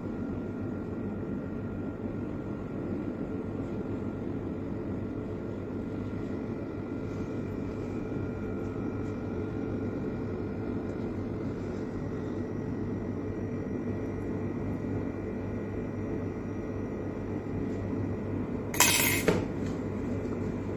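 Steady low machine hum, like a running room fan or cooler, with a few faint high steady tones over it. About nineteen seconds in there is one short, loud clatter or knock.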